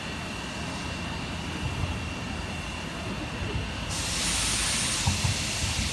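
Steam locomotive in a depot yard: a loud steam hiss starts suddenly about four seconds in and holds steady, over a low rumble, with a thin steady high tone throughout.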